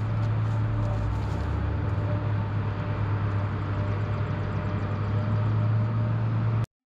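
Heavy diesel logging machinery running steadily, a continuous low drone. It cuts off abruptly near the end.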